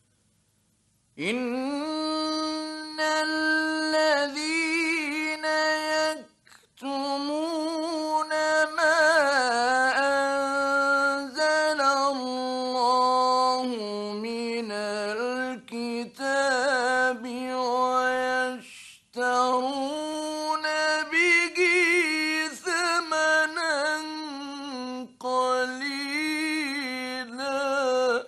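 A man recites the Quran in the ornamented mujawwad (tajweed) style: long melodic phrases with wavering, embellished pitch, broken by short pauses for breath.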